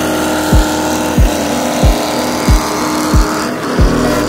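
Music with a heavy, deep bass drum that drops in pitch on each hit, pounding evenly about three times every two seconds over a held synth tone.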